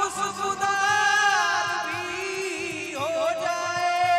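A man singing a slow, drawn-out melody into a microphone over a stage PA, holding long notes and gliding between them.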